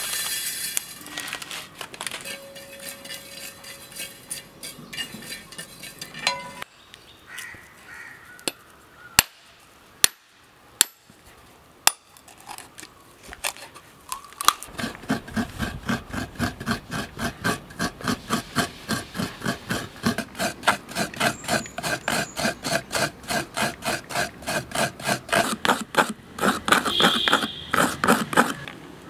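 A machete blade strikes a coconut with four sharp knocks, cracking it open. Then come fast, even scraping strokes of coconut being grated on a hand-held metal scraper, about four strokes a second, each with a slight metallic ring.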